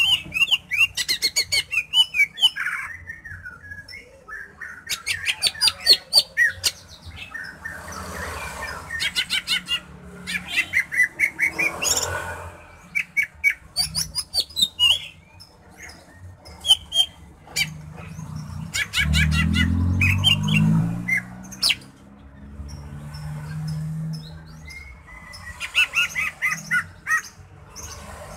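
Caged male greater green leafbird (cucak hijau) singing in repeated bursts of rapid rattling notes mixed with short whistled phrases. About two-thirds of the way through, a low rumble rises beneath the song for a few seconds.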